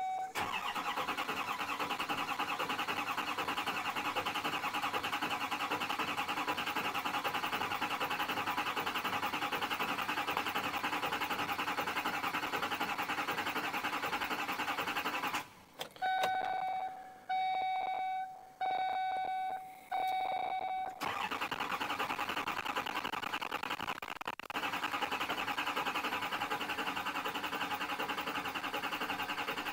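Duramax diesel V8 cranking over on the starter without firing, in two long spells. In the pause between them, a bit past halfway, a chime beeps four times. The engine won't catch because air is still in the not-yet-primed fuel system.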